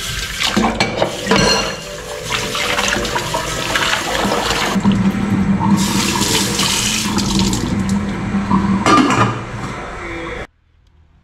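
Kitchen tap running and splashing into a stainless steel sink as dishes are rinsed under it, with a few sharp knocks. It cuts off suddenly about ten and a half seconds in.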